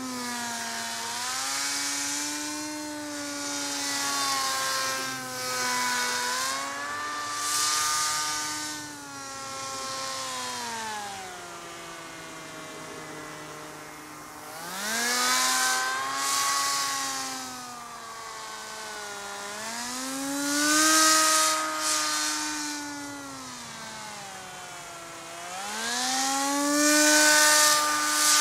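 The electric motor and propeller of an RC paramotor in flight, a whine whose pitch follows the throttle. It wavers gently at first, then climbs and falls back three times, loudest at each high point, around the middle, about two-thirds through and near the end.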